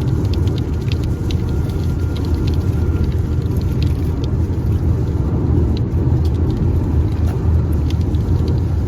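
Steady rumble of car tyres and road noise heard from inside the cabin at highway speed, with scattered irregular ticks of raindrops hitting the car in a light rain.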